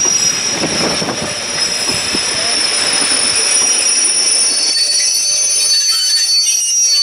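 Heritage passenger coaches rolling past on a curve, wheels squealing with steady high-pitched screeches over the rumble and clatter of the bogies. The rumble fades away about four to five seconds in, leaving mainly the squeal.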